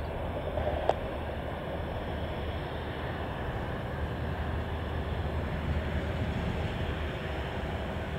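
RAF Tornado GR4's twin RB199 turbofan engines running at low power as the jet taxis on the ground, heard from a distance as a steady, even noise heavy in the low end.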